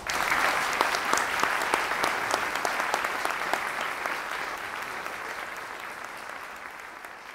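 Large audience applauding, breaking out suddenly and then slowly fading away.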